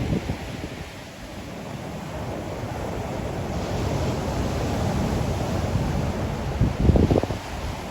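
Ocean surf washing onto the shore, easing off about a second in and then swelling again. Near the end a brief low rumble of wind buffeting the microphone stands out.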